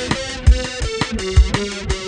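Background music with a steady drum beat and melodic notes.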